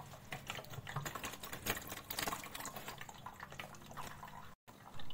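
Metal spoon scraping and clicking against a plastic mesh sieve as it presses wet, ground cucumber pulp, with juice dripping through into the jar below; irregular small clicks and scrapes throughout.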